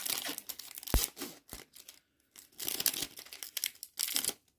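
Foil wrapper of a Pokémon trading card booster pack being torn open and crinkled, in irregular bursts with a sharp click about a second in.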